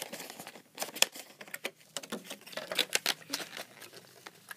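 Clear plastic blister packaging crinkling and clicking as a diecast toy car is worked out of it by hand: a run of irregular sharp clicks and crackles, the sharpest about a second in.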